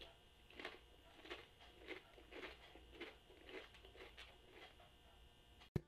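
Faint, regular crunching of a Lay's potato chip being chewed with the mouth closed, under two crunches a second. A single sharp click comes right at the end.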